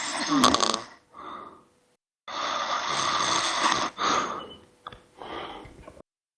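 Snoring: a run of breath sounds of uneven length, the longest lasting about two seconds, with short pauses between them.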